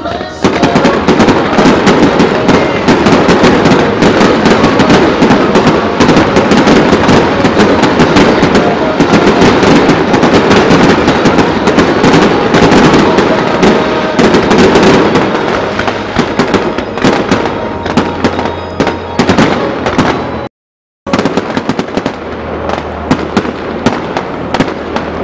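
A dense fireworks barrage of small aerial shells and ground set pieces: rapid, overlapping bangs and crackling start about half a second in and run thick. They thin to scattered reports after about fifteen seconds. Near the end the sound cuts out for about half a second, then comes back quieter.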